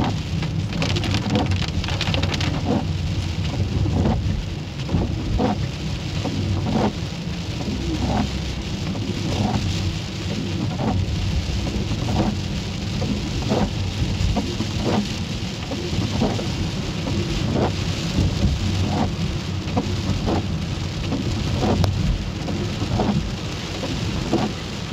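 Rain falling on a car's roof and windshield, heard from inside the car: a steady hiss with single drops ticking at uneven intervals, over a steady low rumble.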